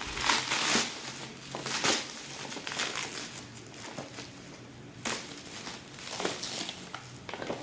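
Parcel packaging crinkling and rustling as it is handled and pulled open. It comes as a run of uneven crackles, loudest in the first second, again about two seconds in and about five seconds in.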